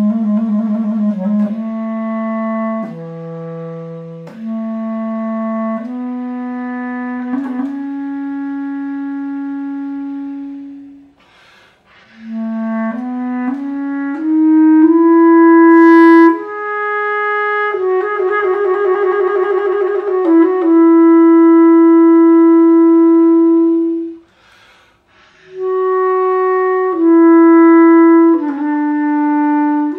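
Solo bass clarinet playing a slow chorale melody of long held notes, in phrases broken by two short pauses for breath.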